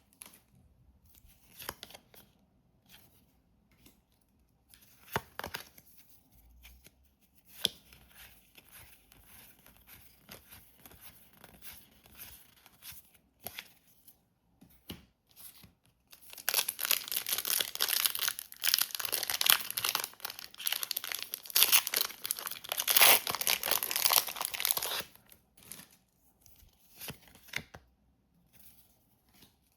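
Packaging being unwrapped by hand. Quiet rustles and small crinkles, then about halfway through some eight seconds of loud crinkling and tearing, as a booster pack wrapper is ripped open, before it settles back to light handling.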